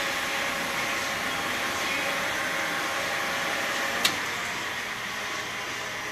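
Glass-sheet washing machine running under test, a steady whirring hiss with a faint hum. A single sharp click about four seconds in, after which the machine sounds slightly quieter.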